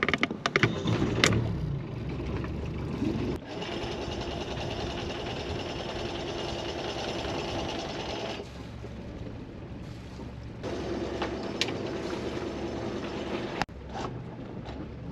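Sailboat's Volvo Penta diesel engine started with the key: a brief ragged cranking and catch in the first second, then steady running. A higher steady whir joins the engine for several seconds, stops, and comes back near the end.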